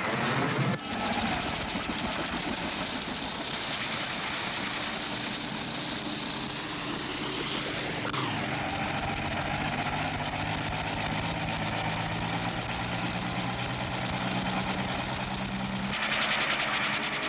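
Cartoon motor-vehicle sound effect: an engine running with a fast, steady chugging. Its pitch climbs through the first half and changes abruptly about eight seconds in, with some steady low tones under it afterwards.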